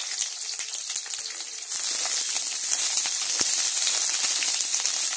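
Onion pieces sizzling in hot oil in a metal kadai, freshly added for a tadka, with a spatula clicking and scraping against the pan as they are stirred. The sizzle grows louder about two seconds in.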